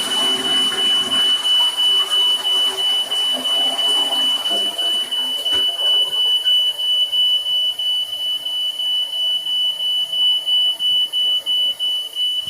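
Electronic alarm sounding one loud, piercing high-pitched tone that holds without a break.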